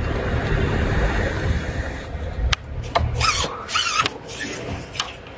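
Dry reed stems rustling and scraping as a hooked fish is played through the reeds, over low rumbling handling noise, with the fish splashing at the surface at the start. A few sharp ticks stand out, and the rustling grows brighter about three seconds in.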